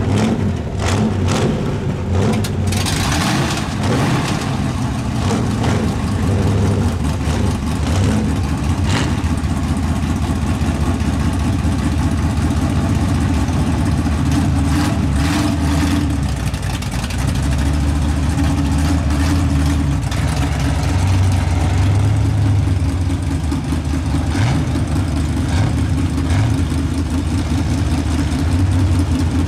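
Big-block Chevy V8 of a lifted mud truck running loudly near idle, its pitch rising and falling a few times with light throttle, and a few scattered clicks.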